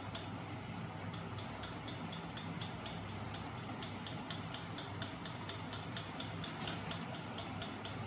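Homemade magnet engine driven by a small 12 V electric motor, running with a steady low hum and a regular sharp click about three to four times a second as its crankshaft turns.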